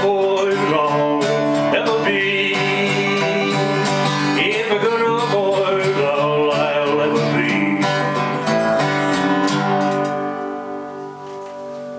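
Acoustic guitar strummed, with a sung vocal line over it, closing a country song. About ten seconds in, the strumming stops and a final chord rings out and fades.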